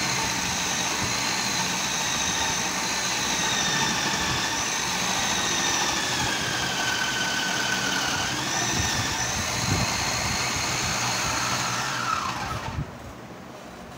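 Vitamax VM 502 food processor's motor running with its grater disc shredding cabbage: a steady whine that wavers and sags in pitch as the cabbage is pressed down the feed tube. Near the end it is switched off and the whine falls away as the motor spins down.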